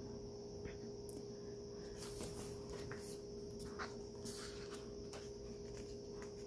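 Faint paper rustling and soft sliding of a photo book's pages under the hands, with one page turned over, over a steady faint hum.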